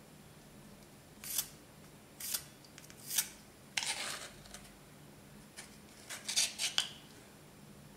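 Edge of a thin Okudo suita natural-stone slice scraped in short, irregular strokes across an Atoma diamond plate, grinding the edge of a finger stone. About eight brief rasps, the longest about four seconds in and a quick cluster near the end.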